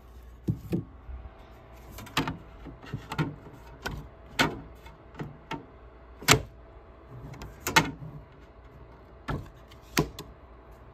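Handling of a Creality 3D printer's textured spring-steel build plate and a freshly printed PLA part: a string of irregular sharp clicks and knocks, the loudest about six seconds in.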